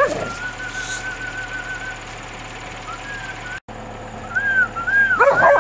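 Stray dogs squabbling over food: a sharp yelp falling in pitch at the start, thin high whining, then a burst of overlapping yelps and whines near the end.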